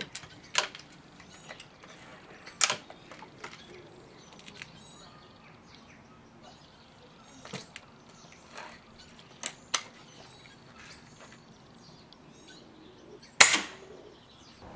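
An Emei TS-45 .177 sidelever spring-piston air rifle being handled, cocked and loaded, giving a few sharp mechanical clicks and clacks. Near the end comes the shot, a sharp crack with a short ring, the loudest sound here. Birds chirp faintly.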